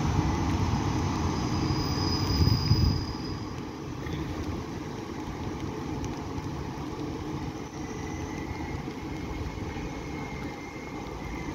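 Electric-locomotive-hauled regional train pulling away along the track. Its loud rumble dies down after about three seconds, leaving a steady hiss of rain and wind.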